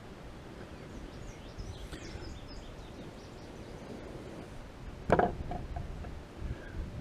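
Outdoor ambience: wind rumbling on the microphone, with faint bird chirps in the first few seconds and one brief, sharp, loud sound about five seconds in.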